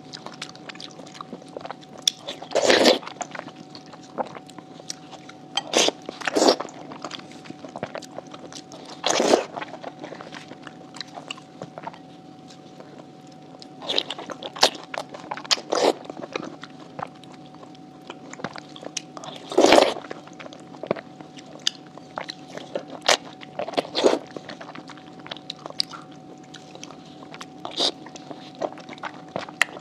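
Close-miked eating sounds: biting into and chewing sauce-coated skewered oysters, in short wet bursts a few seconds apart, the loudest about two-thirds of the way through.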